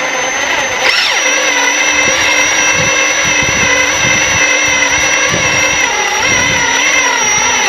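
Kubota Grand L3560 tractor's diesel engine running steadily under a high, steady whine.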